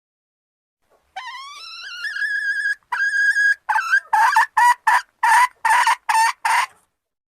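Junglefowl hen calling: a drawn-out note that rises and then holds steady, a second shorter held note, then a run of short, harsher notes at about three a second.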